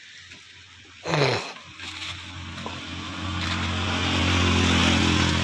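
A motor vehicle's engine running with a steady low hum, growing louder over a few seconds and easing off near the end. A short sound sliding downward in pitch about a second in.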